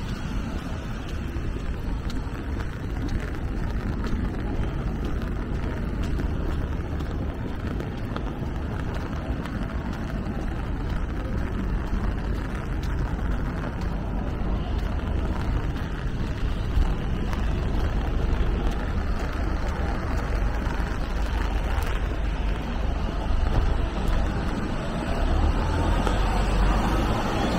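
Traffic on wet city streets: a steady low rumble of engines with the hiss of tyres on the wet road, the rumble growing heavier near the end.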